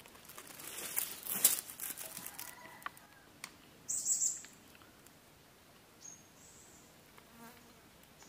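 Dry leaf litter rustling and crackling for about two seconds as a person shifts on it, then a short, high bird chirp about four seconds in and a thin, high bird call around six seconds.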